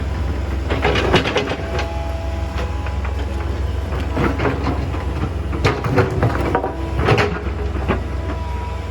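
Excavator's diesel engine running steadily with a faint hydraulic whine, and bursts of rattling clatter several times as stones and soil are worked in the bucket.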